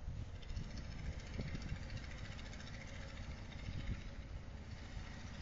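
Yanmar 4TNE88 four-cylinder diesel engine of a YEG-20 20 kVA generator set running steadily.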